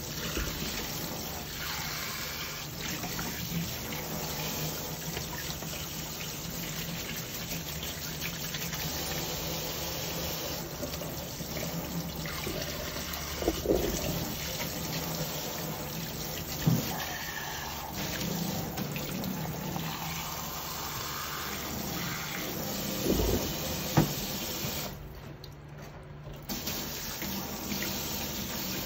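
Kitchen tap running into a stainless steel sink, the stream splashing over a flannel coffee filter cloth as it is rinsed by hand. A few short knocks are heard in the middle and later part, and the water sound drops near the end.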